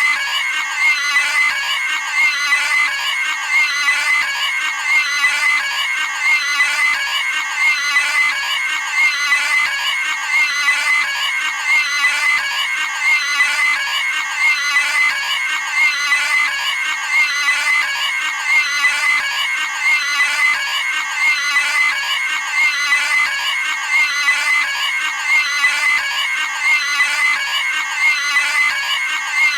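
Cartoon pig squealing, one short high-pitched squeal after another repeated in a steady loop.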